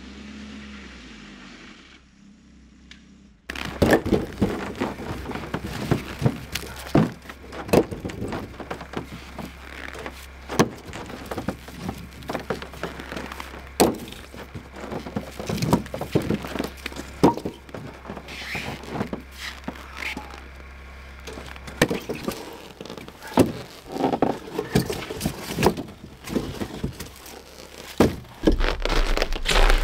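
Firewood logs being unloaded and stacked into a wooden log rack: a run of irregular wooden knocks and thunks as logs strike each other and the boards, starting a few seconds in.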